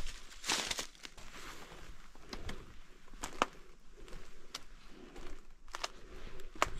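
Footsteps crunching through dry leaves and twigs on the forest floor, in irregular steps with a few sharper snaps.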